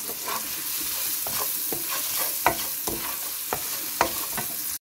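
Sliced shallots sizzling in oil in a nonstick frying pan while a wooden spoon stirs them, with frequent short knocks and scrapes of the spoon against the pan. The sound cuts off abruptly just before the end.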